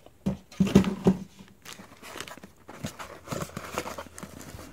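Cardboard packaging handled and pulled open by hand: an inner box sliding and knocking against its outer box, with scattered taps, scrapes and crinkling, loudest about a second in.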